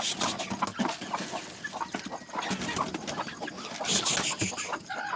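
Hens clucking around the coop, with many short clicks and a brief rustle about four seconds in.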